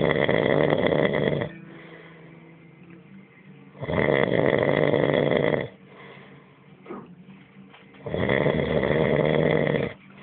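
Very loud snoring: three long snores, each about a second and a half to two seconds, coming about every four seconds.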